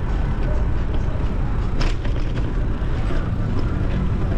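Steady wind rumble and road noise from riding a bicycle through city traffic, with one brief sharp sound just under two seconds in.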